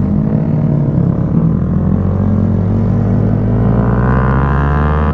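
Honda Grom's small single-cylinder four-stroke engine running under way, its note climbing over the last second or so as it revs up.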